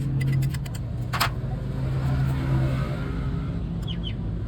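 A BMW car engine running steadily at idle, with a few sharp clicks over it, the loudest about a second in.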